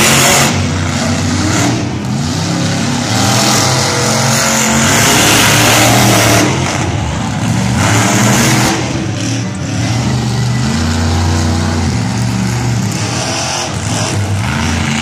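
Monster truck engines revving hard, the pitch rising and falling again and again as the trucks drive and climb.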